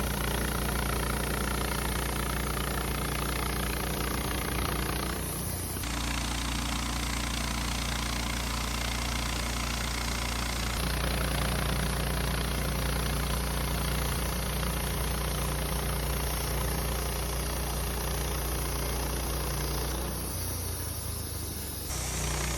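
Wood-Mizer LT15 portable band sawmill running, its engine droning steadily, with a few abrupt shifts in the sound partway through and a brief dip near the end.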